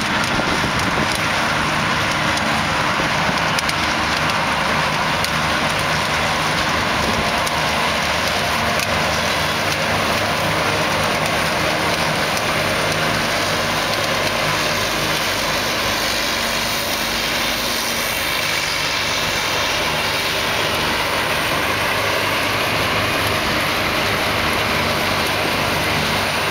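New Holland FX450 self-propelled forage harvester chopping grass and blowing it into a forage wagon drawn alongside by a tractor. The engines and the harvester's chopping machinery make a steady, unbroken machine drone.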